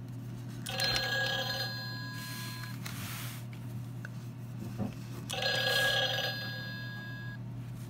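Gemmy Santa's rotary telephone toy playing an electronic telephone ring through its small speaker: two rings of about two seconds each, some three seconds apart, announcing the next call.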